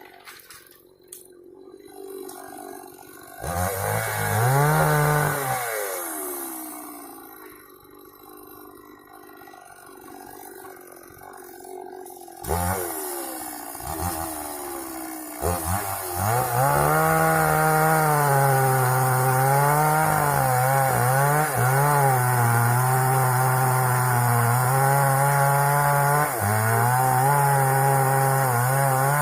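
Two-stroke chainsaw revving briefly a few seconds in and dying back, revving again around twelve seconds, then from about sixteen seconds running at high throttle with its pitch wavering as it saws through sengon wood.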